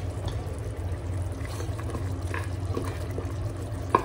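Mutton gravy simmering on low flame in an open aluminium pressure cooker, with small quiet bubbling over a steady low hum. A wooden spoon knocks against the pot just before the end as stirring begins.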